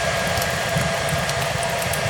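Hair dryer running steadily: an even airy rush with a faint motor whine, over a fireplace's small scattered crackles.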